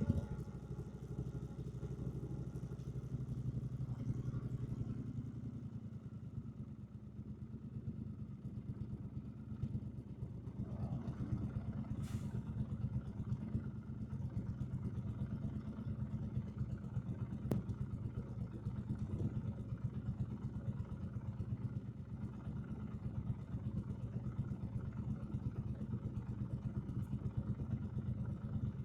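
2024 Triumph Bonneville T120's 1200 cc parallel-twin engine running at a steady low engine speed with an even, pulsing exhaust note, with a couple of faint clicks midway.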